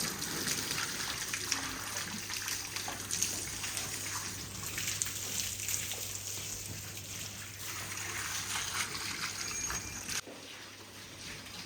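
Water splashing and trickling, with a steady low hum underneath; the sound drops off abruptly about ten seconds in.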